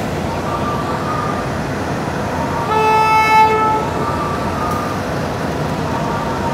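Diesel shunting locomotive sounding its horn: one blast of about a second, nearly three seconds in, over steady background noise.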